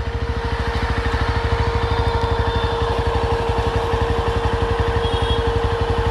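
Yezdi Roadster's single-cylinder engine running at low, steady revs with even exhaust pulses as the bike pulls over. A steady hum sounds alongside it.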